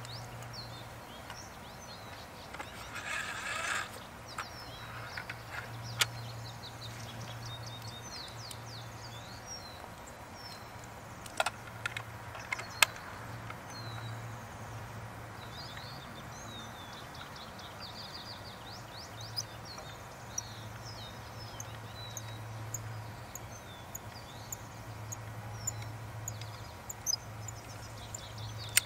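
Small birds chirping over a steady low hum, with a brief rustle about three seconds in and a few sharp clicks as the crossbow is handled.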